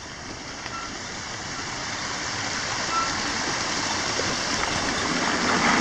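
Shallow stream rushing over stones, growing steadily louder as the bicycle rolls toward it over gravel.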